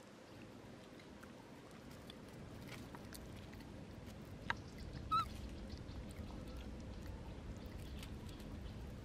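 A single short, high-pitched animal squeak about five seconds in, just after a sharp click, over a faint steady background.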